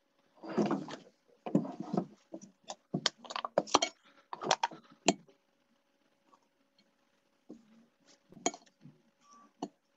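Cut fruit pieces being put into a glass, with clinks and knocks against it: a dense run of them over the first five seconds, then a few scattered clicks near the end.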